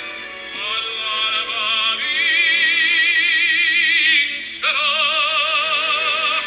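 Background music: an operatic voice singing long held notes with a wide vibrato over steady accompaniment. The voice breaks off briefly about four and a half seconds in, then comes back on a new held note.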